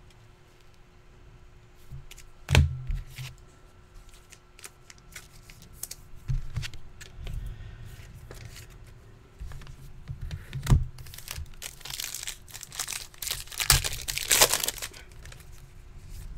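A trading card pack's wrapper being torn open and crinkled, with two sharp knocks, one a few seconds in and one near the middle, and the loudest crinkling near the end.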